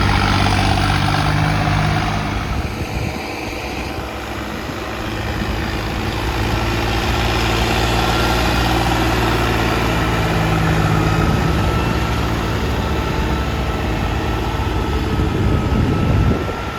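Turbocharged Swaraj 855 tractor's three-cylinder diesel engine running under load, its note dipping about three seconds in and building back up, with a steady turbo whistle in the second half and a louder swell near the end.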